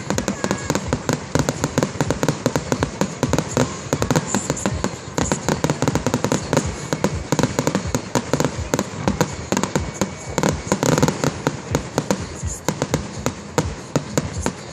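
Aerial fireworks display: a rapid barrage of shells bursting, many bangs a second with no pause.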